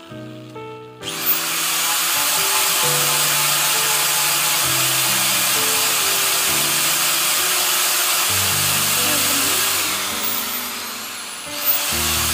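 Handheld electric angle grinder with a sanding disc working a wooden cup. It starts with a rising whine about a second in and runs steadily, winds down with a falling whine near the end, then starts up again. Background music plays underneath.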